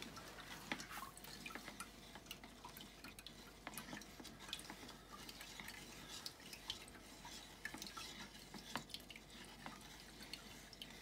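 Small plastic spoon stirring and scraping wet oat pulp in a fine strainer, helping oat milk through the mesh: faint, irregular little clicks and scrapes.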